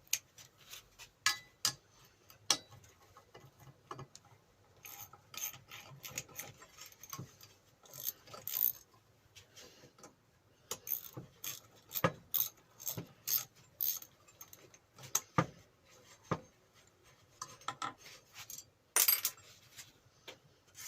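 Metal hand tools clinking, rattling and knocking at irregular intervals, as a socket set, extension bar and ratchet are handled, with a few louder knocks now and then.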